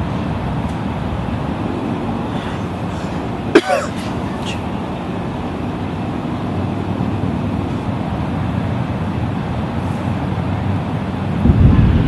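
Steady low rumble of distant traffic, broken once about three and a half seconds in by a brief sharp sound with a quick sweep in pitch. Near the end a louder low rumble comes in.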